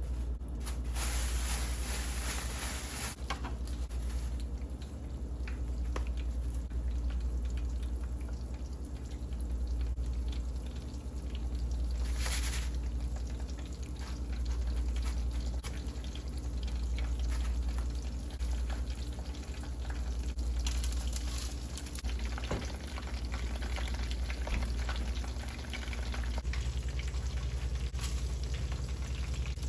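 Kitchen cooking sounds: food frying in oil with liquid splashing and pouring, scattered clicks, and louder spells of noise near the start and about twelve seconds in, over a steady low hum.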